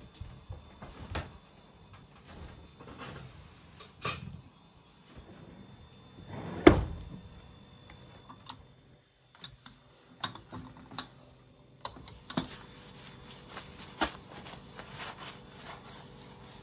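Kitchen handling sounds: scattered knocks and light clicks, with one loud thud about seven seconds in. In the second half, a steady scratchy rubbing with small ticks, as a cloth wipes the cabinets and the stone countertop.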